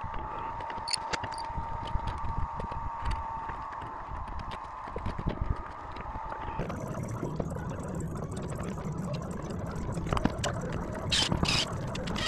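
Building-site noise: a steady mechanical hum with scattered knocks and taps. About halfway through the hum stops and gives way to a lower rumble, with a couple of short hissing bursts near the end.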